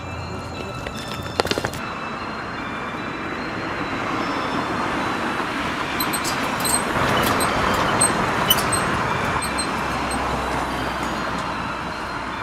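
Street traffic noise: a vehicle passing, swelling to a peak about seven seconds in and then fading away. A few sharp clicks sound about a second and a half in.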